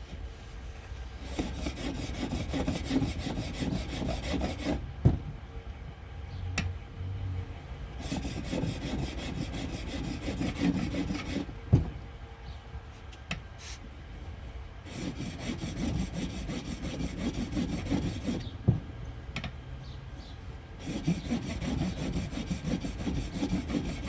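Steel lathe tool being stroked back and forth across the fine side of a diamond sharpening plate, a rhythmic scraping rub. It comes in four runs of a few seconds each, with short pauses and a sharp click between runs.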